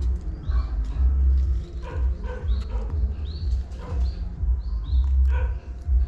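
Wind rumbling in gusts on the microphone, with several short animal calls and a few bird chirps over it.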